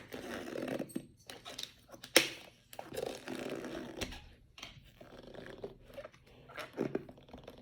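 Plastic lid and seal of a slime bucket being pried and pulled at by hand: rustling and scraping with scattered clicks, and a sharp snap about two seconds in.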